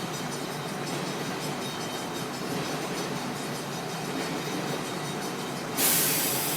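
Freight train of tank cars rolling past: a steady rumble of wheels on rails. Near the end comes a sudden, loud, brief rush of noise.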